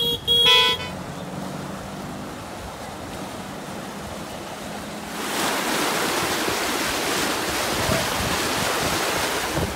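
Turbulent floodwater rushing and churning through a channel, a steady loud rush that comes in about halfway through. Before it there is quieter steady noise, and at the very start a brief loud tonal sound.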